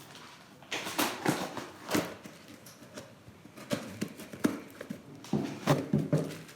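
A parcel being opened by hand: irregular knocks, scrapes and rustles of cardboard and packing.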